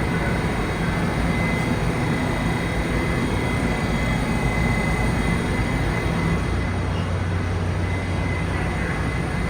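Interior noise of an R68 New York City Subway car under way: a steady low rumble and hiss, with a faint steady high-pitched whine.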